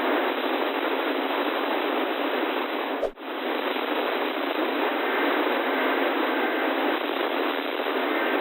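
Radio static: the steady hiss of a weather-radio signal received weakly on a software-defined radio, with no voice coming through. The hiss drops out briefly about three seconds in, and faint steady tones show through it from about five seconds in.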